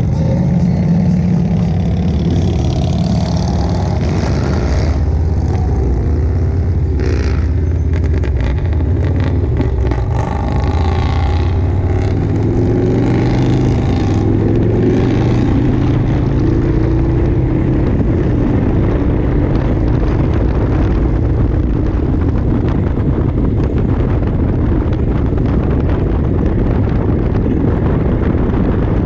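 Motorcycle engine pulling away and accelerating, its pitch rising in steps through the middle of the stretch. It then settles into steady highway cruising, with road and wind rush growing over the engine.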